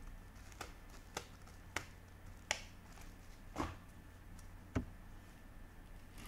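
Hands rummaging through loose toy figures and plastic bags: a string of about six sharp clicks and light knocks, irregularly spaced, with a duller knock near the end.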